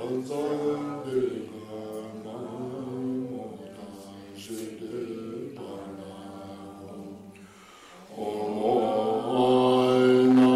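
Voices chanting a mantra on long, steadily held notes, softer in the middle, breaking off briefly about eight seconds in and resuming louder.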